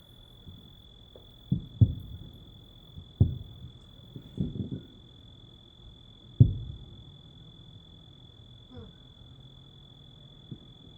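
Distant fireworks booming, about six low thuds with lingering tails, the loudest about six seconds in, over a steady high-pitched chorus of night insects.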